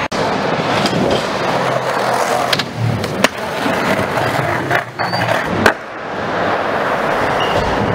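Skateboard wheels rolling steadily over a wooden skatepark surface, with sharp board clacks from tricks, the loudest about three and five and a half seconds in.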